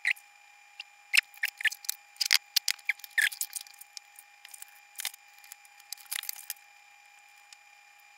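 Handling noise of a metal amplifier chassis being gripped and turned over on a workbench: a run of sharp clicks, knocks and light scrapes that stops about six and a half seconds in.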